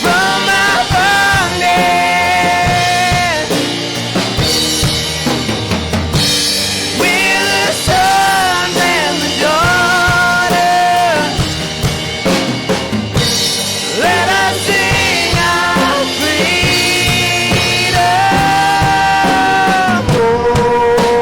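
Worship band music: a drum kit playing under a melodic lead line of long held, gliding notes, an instrumental or wordless stretch of the song.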